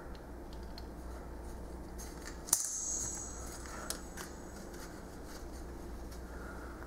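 Small handling sounds of a dehydrator's metal heating-element frame and a replacement fuse lead being worked into place by hand, with one sharp metallic click about two and a half seconds in that rings briefly, and a lighter click a little later.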